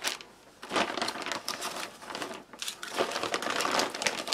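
Foil and plastic ration packets crinkling and the brown ration bag rustling as they are handled, in irregular crackles after a short lull near the start.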